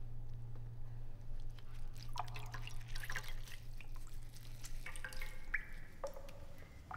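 Water dripping and trickling into a basin as a wet cloth is squeezed out by hand: scattered small drips and plinks, some falling in pitch.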